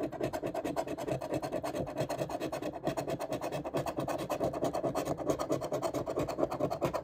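A large metal coin scraping the coating off a scratch-off lottery ticket in rapid, even back-and-forth strokes.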